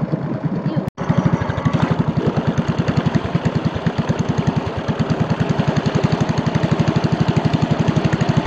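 A small passenger boat's engine chugs with a rapid, even pulse. It breaks off for an instant about a second in, then runs on steadily.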